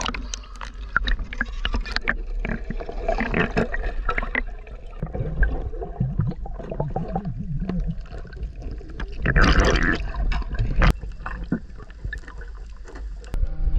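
Water sloshing, splashing and gurgling around a camera at and under the surface, in irregular bursts, with a louder splash about nine and a half seconds in.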